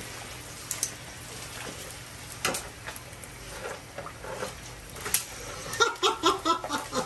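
Pork skin deep-frying in a wok of hot oil: a steady sizzle with scattered crackling and a few sharp clicks from the metal tongs and skimmer.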